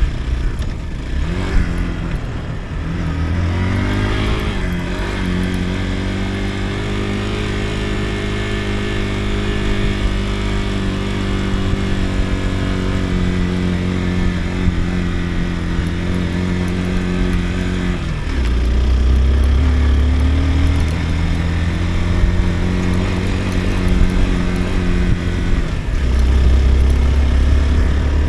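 Motorcycle engine running under way, its note climbing a few seconds in and then holding steady. About eighteen seconds in the note drops suddenly to a lower, heavier pitch and climbs again, and it dips once more near the end.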